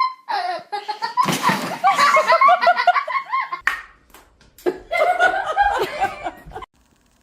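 Hearty human laughter in two bouts, the second starting about four and a half seconds in and ending abruptly.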